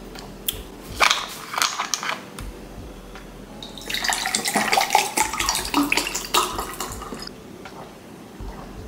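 A plastic water bottle handled, with a few sharp crackles about a second in. Then water is poured from the bottle into a glass for about three seconds.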